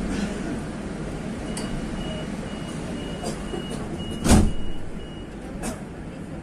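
Madrid Metro train's door-closing warning: a run of short high beeps, two or three a second, over the train's steady hum, with a loud thud of the doors shutting about two-thirds of the way through.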